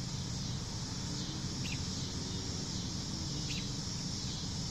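Steady high insect drone, such as crickets or cicadas, with a couple of short high chirps and a low rumble underneath.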